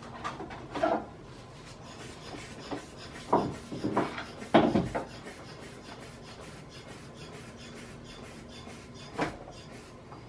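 Fiberglass mold halves being worked apart by hand: scattered scraping, creaking and knocking of the stiff laminate, with a cluster of louder knocks and a low thump about three to five seconds in, and one more knock near the end.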